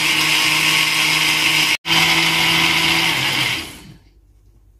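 Bomann countertop blender running at speed, mixing thin crepe batter with a steady motor hum and whir. It cuts out for an instant about two seconds in, then the motor is switched off and winds down near the end.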